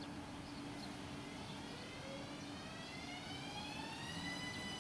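ÖBB class 4744 Cityjet (Siemens Desiro ML) electric multiple unit pulling into the station, its traction converter giving an electric whine that rises in pitch over about two seconds and then holds steady, over a faint steady hum.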